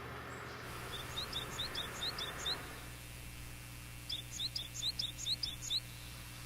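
Japanese tit singing: two quick runs of high, repeated two-note phrases, the second run starting about four seconds in.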